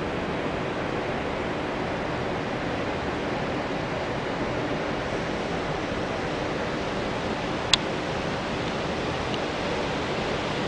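Steady rushing ambience on the open deck of a cruise ship under way, with a faint low hum underneath. A single sharp click comes about three-quarters of the way through.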